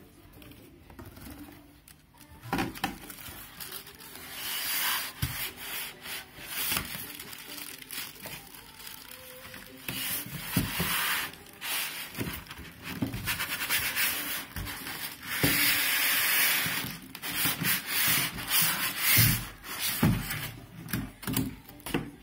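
Foam packing and cardboard scraping and rubbing against each other as a boxed monitor is worked out of its carton, in repeated bursts of a second or two, with sharp knocks in between.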